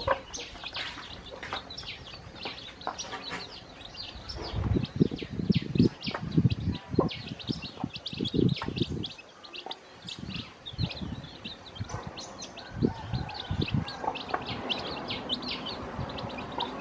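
Newly hatched chicks peeping constantly in short, high chirps. Through the middle comes a run of dull knocks and taps from pecking at the feed, the loudest sounds here.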